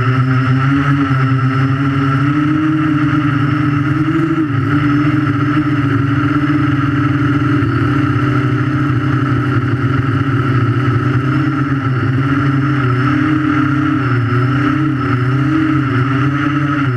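Electric motors and propellers of a 3D quadcopter, recorded from a camera strapped to its frame: a loud, steady, layered whine as it hovers, the pitch wavering slightly as the motors adjust.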